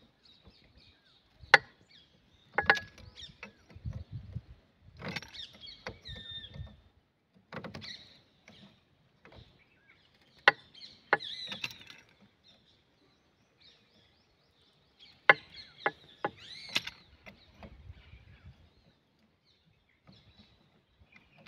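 Spanner clinking and scraping on the steel fittings of a railway track switch as a nut is worked loose or tightened: scattered sharp knocks, a few loud ones with a brief ring, with scraping and rustling between them.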